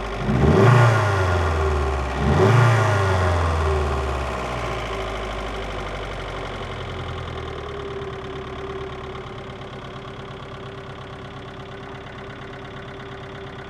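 VAZ 2112 1.6-litre 16-valve engine blipped twice in quick succession, then dropping back and running on at idle. It is run to show a knock that the owner says appeared after the head gasket was replaced.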